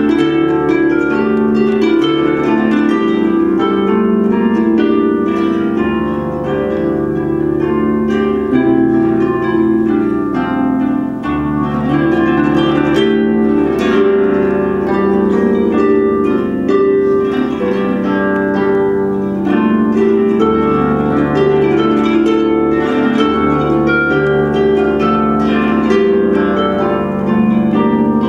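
Solo harp music: a plucked melody over low bass notes that change every few seconds.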